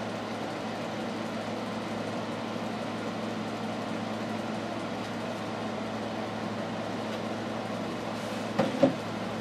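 Steady low hum and hiss of room background noise, with two or three short knocks close together near the end.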